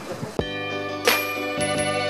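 Background music comes in about half a second in: held chords with a new note struck roughly every half second.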